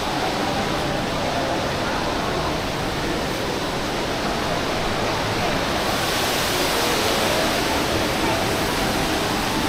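Steady hubbub of a busy indoor shopping mall: an even wash of noise with faint distant voices, the hiss growing brighter about six seconds in.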